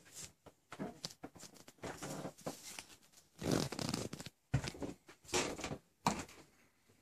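Handling noise from a phone being carried and moved around: irregular bursts of rustling and scraping against the microphone, loudest about halfway through.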